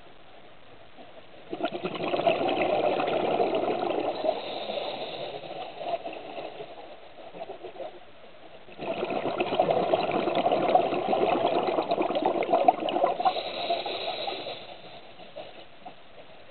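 Scuba diver breathing out through a regulator underwater: exhaled bubbles bubbling and crackling in two long exhalations, the second starting about seven seconds after the first, with short quieter pauses between.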